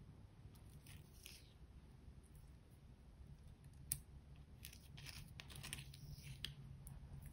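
Plastic spatula scraping pink eyeshadow out of a small makeup pot and smearing it onto clear slime: faint scattered scrapes and soft clicks, with one sharper click about four seconds in and a busier run of scraping a little later.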